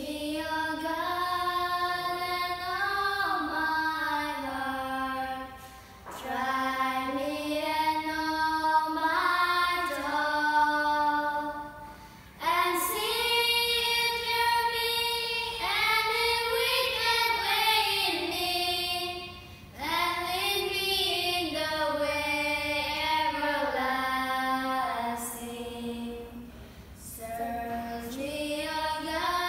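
Three children singing a simple scripture chorus without accompaniment, in phrases of six or seven seconds separated by short pauses for breath.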